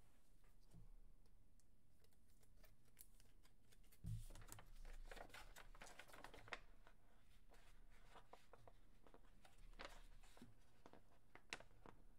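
Faint desk handling sounds: a soft thump about four seconds in, then paper rustling and scattered light clicks.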